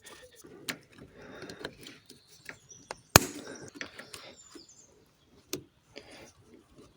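Scattered clicks and knocks of tools and fuel-system parts being handled and fitted on a diesel engine, with one sharp, loud click about three seconds in and another about two seconds later.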